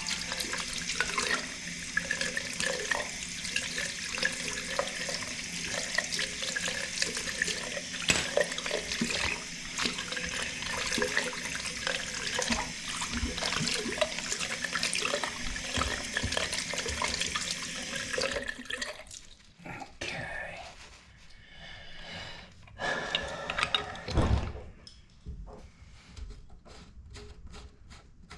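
Faucet water running steadily into a sink, turned off about two-thirds of the way through, followed by a few light knocks and rustling.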